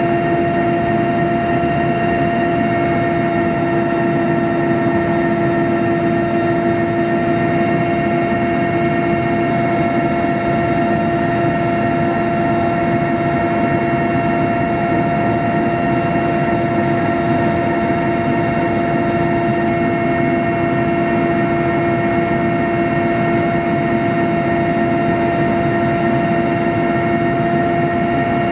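Steady helicopter cabin noise in flight: a loud, even rushing drone with a constant high whine from the turbines and gearbox, unchanging throughout.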